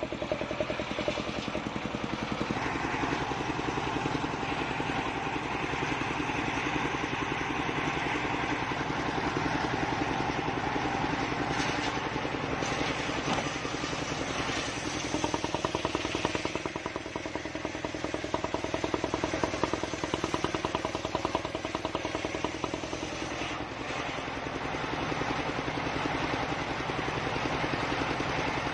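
Engine of a homemade circular-saw sawmill running steadily under load as it drives the blade through a log. Its note changes about halfway through and again near the end.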